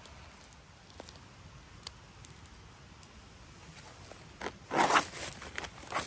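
A sealed pulled-pork pouch being torn open: a short ripping sound about four and a half seconds in, then a smaller rip near the end. Before it there is only faint background with a few light clicks.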